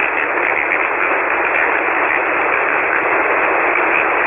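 Steady hiss of band noise from a shortwave transceiver's receiver on 40-metre single sideband, heard while no station is transmitting.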